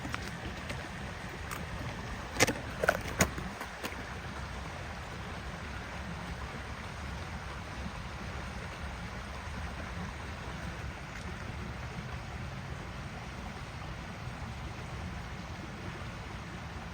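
Steady outdoor background of low rumble and hiss. About two and a half seconds in come three sharp clicks or knocks in quick succession, then a fainter one.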